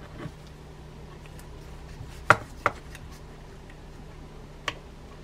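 A few sharp clicks of metal reel parts knocking as hands work at the stuck side plate of an old baitcasting reel, three in all with the first the loudest, over a steady low hum.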